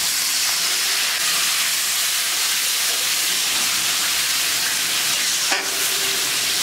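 Hot pan of ghee, onion and spice masala hissing loudly and steadily just after a little water is added. There is a brief knock about five and a half seconds in.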